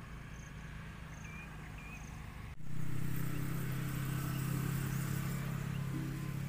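A few short bird chirps over faint outdoor background, then, about two and a half seconds in, the steady low hum of a passing motor vehicle's engine, which slowly fades.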